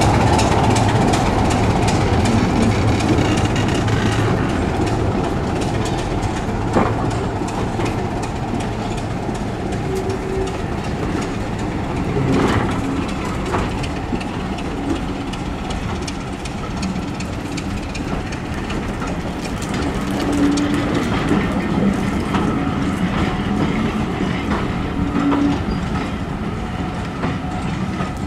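Diesel-hauled passenger train pulling slowly out: the locomotive's engine fades over the first few seconds as it draws away, then the coaches roll past with their wheels clicking over the rail joints and a few sharp clunks.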